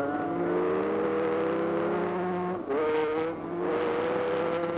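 Sport motorcycle engine running hard on an ice-racing track. Its note dips briefly about two and a half seconds in, then carries on at high revs.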